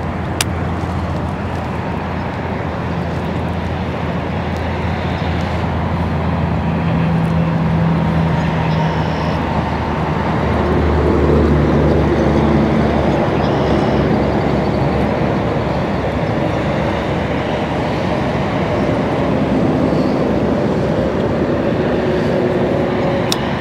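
Steady vehicle engine and road rumble, the engine's tone shifting a little partway through. There is a sharp click just after the start.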